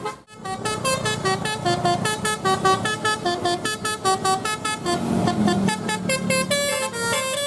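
Indonesian bus telolet horn, a multi-tone 'Basuri' air horn, playing a fast tune of short notes that step up and down. After a brief drop-out at the very start, the notes run on without a break.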